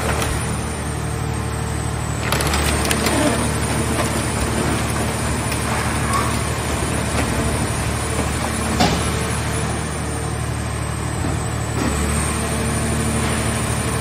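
Hydraulic scrap car-shell baler running steadily as its press lids open, with a few sharp cracks and creaks of crushed sheet metal shifting in the press box.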